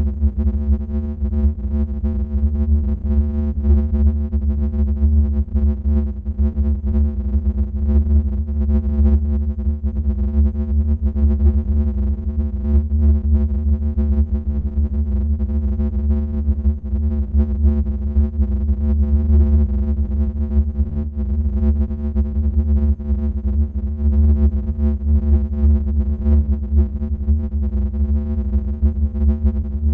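Scary sound effect: a sustained synthesizer drone with a heavy, deep bass, holding the same dense chord of tones without a break or change.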